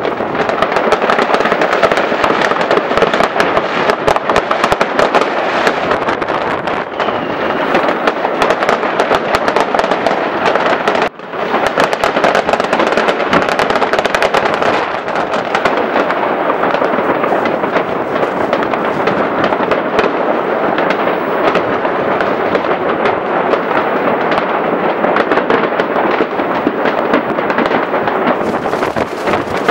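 Dense, continuous barrage of many fireworks and firecrackers going off together: a nonstop mass of crackling, pops and bangs, with a momentary gap about eleven seconds in.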